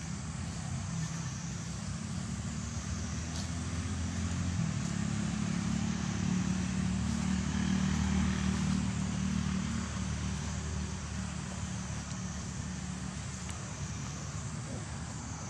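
An engine drones low and steady, growing louder to its peak about eight seconds in and then fading, like a motor vehicle passing.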